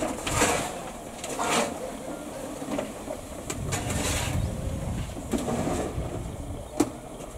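Standing 1918 Andrew Barclay narrow-gauge steam locomotive, with several short hisses of steam, a low rumble and two sharp metallic clicks.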